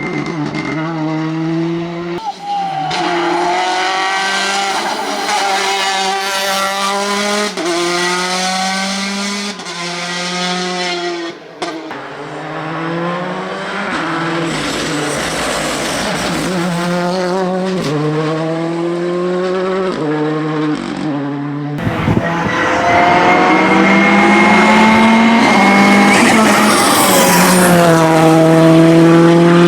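Ford Fiesta R5 rally car's turbocharged four-cylinder engine at full stage pace: the note climbs through each gear and drops at every quick shift, over and over. About three quarters of the way through it grows louder and a steady high whine runs for a few seconds.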